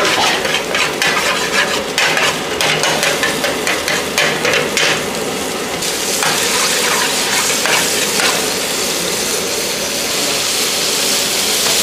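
Tomato masala sizzling in hot fat in a pan while a metal ladle stirs and scrapes it, with quick scraping strokes through the first half. The stirring then eases off to a few strokes over a steady sizzle.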